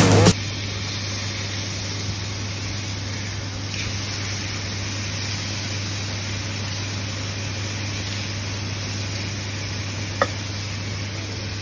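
Beef burger patties sizzling on a hot ridged grill pan, a steady hiss with a low hum underneath. A short rising squeak sounds about ten seconds in.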